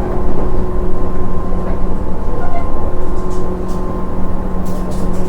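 Train running: a steady, loud low rumble with a constant hum, and a few short high clicks about three seconds in and again near the end.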